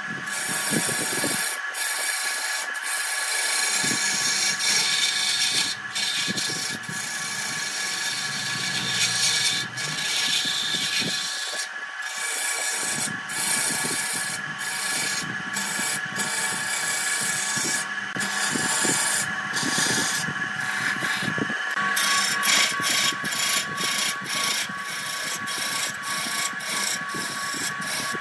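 Lathe gouge cutting a spinning areca palm stump: a steady scraping, shaving hiss of the tool on the turning wood over a steady machine whine, the tone of the whine changing about three quarters of the way through.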